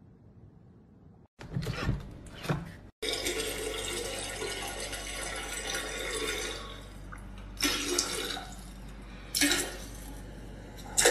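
Toilet flushing: a loud rush of water for about four seconds, easing off, followed by a few short, louder bursts.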